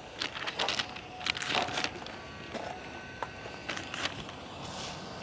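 Intermittent light rustling and small clicks of things being handled, over a low steady background.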